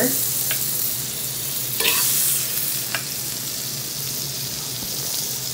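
Butter sizzling as it melts on a hot metal sizzling plate: a steady frying hiss, with a few light clicks, the loudest about two seconds in.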